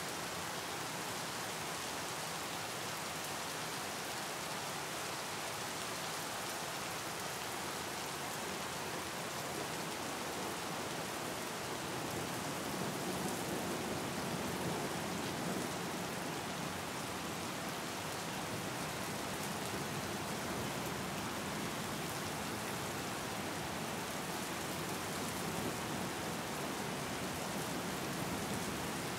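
Steady rain falling onto open water, an even hiss of countless drops striking the surface, swelling slightly about halfway through.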